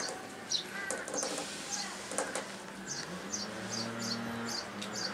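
Small birds chirping: short, high, slightly falling notes repeating about twice a second, over a low steady hum.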